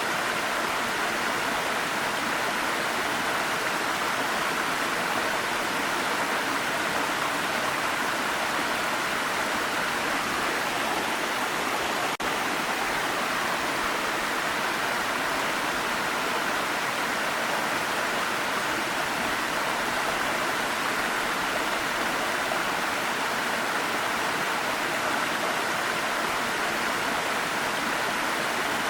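Waterfall: a steady, even rush of falling water, with one brief click and dip partway through.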